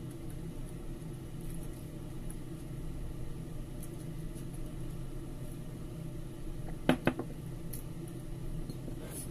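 Steady low hum of a small room, with two sharp knocks in quick succession about seven seconds in.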